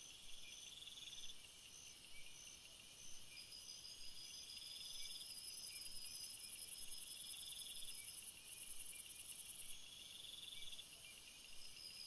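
Faint evening chorus of insects: several trilling at different pitches, some in short repeated pulses, over a high buzzing drone that grows louder about five seconds in and drops away shortly before ten seconds.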